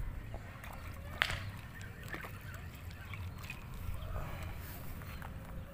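Farmyard fowl calling faintly now and then over a low steady rumble, with one sharp click about a second in.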